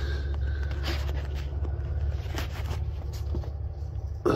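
A steady low rumble, with small clicks and handling noises. Near the end comes a sharper click as a finger presses the battery charger's button.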